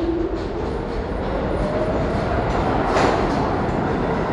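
R46 subway train accelerating out of the station: its traction motors whine, rising steadily in pitch, over a rumble of steel wheels on the rails, with one sharp clack about three seconds in.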